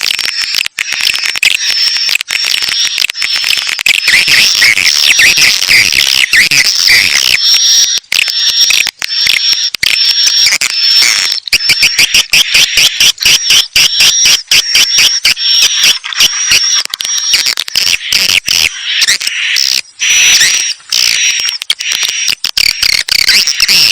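Swiftlet lure-call recording: a dense, continuous high-pitched twittering of many swiftlets with rapid clicking chirps, the kind of call played to attract swiftlets into a new nesting house.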